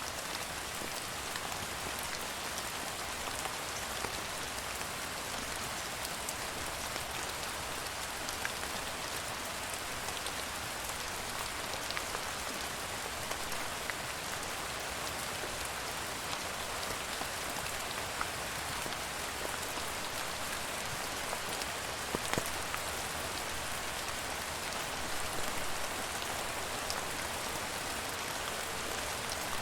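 Steady rain falling on a surface, an even hiss with the patter of many individual drops.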